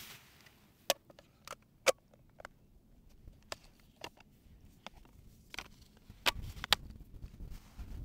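Handling noise of a camera with a long telephoto lens: sharp clicks and knocks as it is gripped and its screen is tilted out, the loudest about one and two seconds in and a pair just after six seconds, with clothing and gear rustling from about six seconds on.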